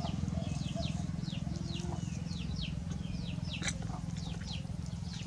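Small birds chirping over and over in short, quick downward-sliding notes, over a steady low hum.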